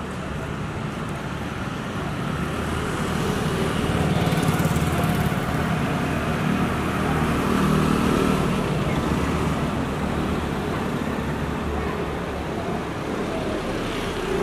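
Street traffic: vehicle engines running and passing in a continuous rumble that swells a couple of times as vehicles go by.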